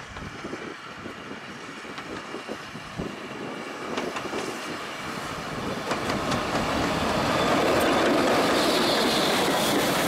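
Steam-hauled train drawing closer and growing steadily louder, its wheels clicking over the rail joints.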